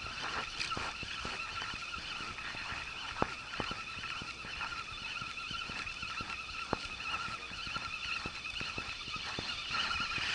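A spinning reel being cranked to retrieve a jig: a steady gear whirr with a few sharp ticks.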